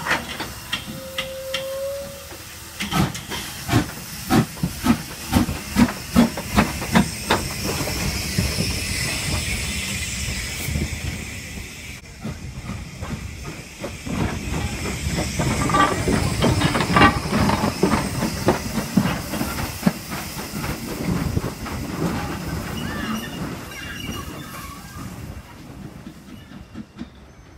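Hunslet Austerity saddle-tank steam locomotive No. 198 pulling a train out of a station: a short whistle about a second in, then loud exhaust chuffs at about two a second with steam hissing as it passes. The coaches' wheels then clatter over the rail joints, fading away as the train leaves.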